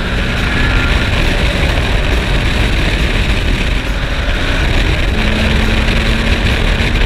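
Engine of a 1947–1955 vintage race car running hard at speed, heard onboard from the open cockpit, with a steady rush of wind and road noise over the microphone. A steady engine note comes through more clearly about five seconds in.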